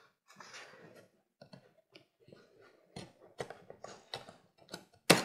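Small clicks and scrapes of a knife working at a plastic packing strap around a cardboard box, ending near the end with a sharp snap as the strap is cut through.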